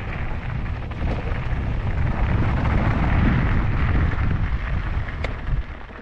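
Wind buffeting the microphone together with a mountain bike's tyres rolling over a trail, a loud rushing that swells in the middle and eases off near the end, with one sharp click about five seconds in.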